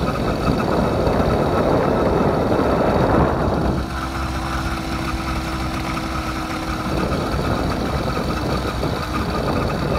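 80cc gas engine of a motorized bicycle running steadily while riding, under a rough rushing noise of tyres on gravel. The rushing is heaviest for the first few seconds, and a steady engine tone stands out for a few seconds in the middle.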